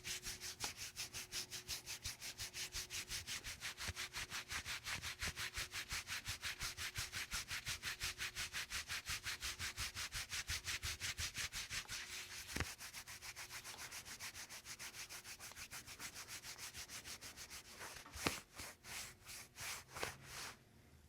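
Fast, even rubbing strokes, about five a second, like vigorous friction over skin or cloth. There is a sharp click about two-thirds of the way through and a louder one near the end. The strokes then turn irregular and stop suddenly.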